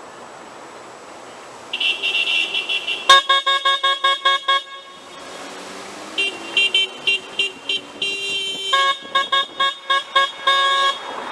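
Car horns honking in runs of short, rapid toots, about four a second, from at least two horns at different pitches, starting about two seconds in; a steady traffic hiss runs underneath.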